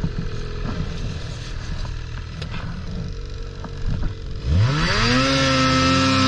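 Ski-Doo Summit 600R E-TEC two-stroke twin engine running at low revs, then throttled hard about four and a half seconds in, its pitch climbing quickly and holding high and loud as the sled pulls through deep snow.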